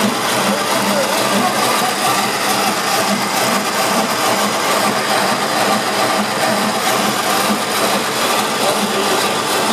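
Portable line boring machine running steadily, its motor and drive giving a continuous mechanical whir with a regular low pulsing of a few beats a second.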